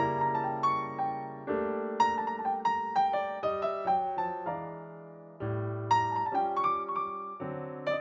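Background music: a light piano tune with chords over a low bass line.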